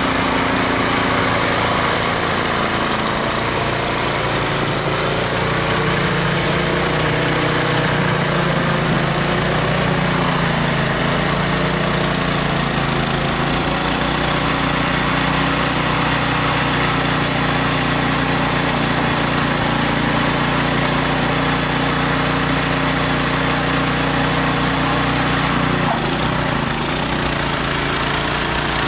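Small snowblower engine running steadily under load, its pitch wavering slightly now and then.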